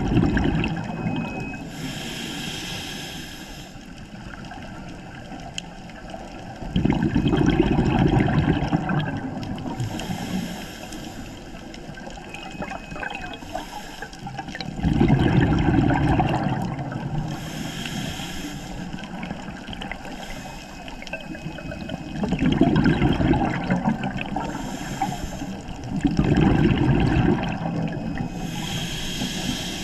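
Scuba diver breathing through a regulator underwater: bubbling exhalations roughly every seven or eight seconds, each followed a couple of seconds later by a short hissing inhalation.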